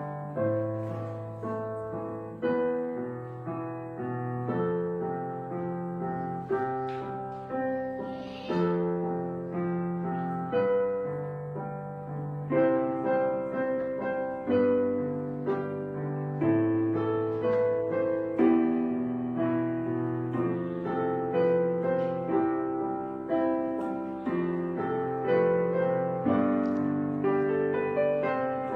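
Background piano music, a slow series of chords and melody notes, each struck and fading away.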